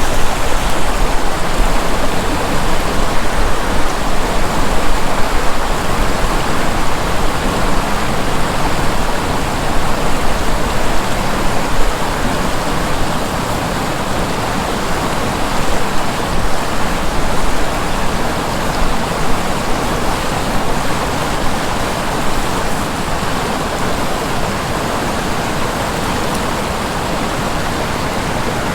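A river rushing steadily past, a constant loud wash of flowing water. A low rumble underneath eases off about twelve seconds in, leaving the water sound steadier.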